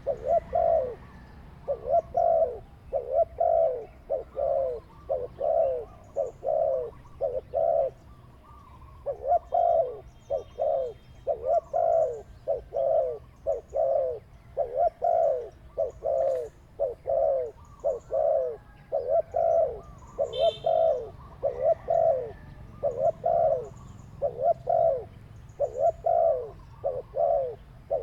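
Dove cooing over and over in runs of short, slightly falling notes, two or three a second, with brief pauses between runs. A short high chirp from another bird cuts in about twenty seconds in.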